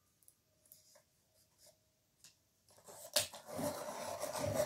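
A Castle Arts coloured pencil being sharpened. Near silence at first, then about three seconds in a rough rasping scrape of wood and lead being shaved, which grows louder toward the end.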